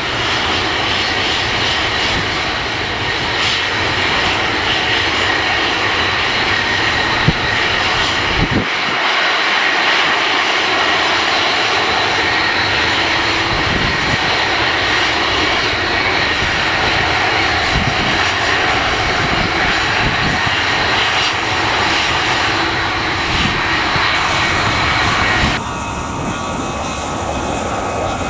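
Airliner engines running loud and steady with a high whine, over a gusty low rumble of strong wind on the microphone. The sound changes abruptly near the end.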